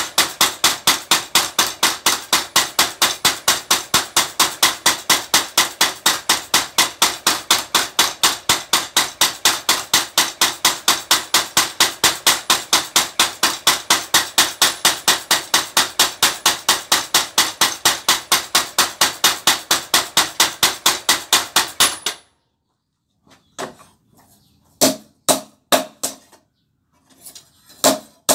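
A homemade motor-driven spring power hammer striking metal on the anvil in a fast, even rhythm of about four blows a second, with a ringing clang to each blow. It stops suddenly about 22 seconds in, and a few separate, lighter hammer blows follow near the end.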